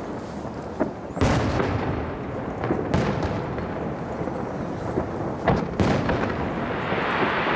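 Starmine fireworks barrage: a constant rumble of many aerial shells bursting together. Sharp loud bangs stand out about a second in, at about three seconds, and twice around five and a half seconds. A steady hiss builds near the end.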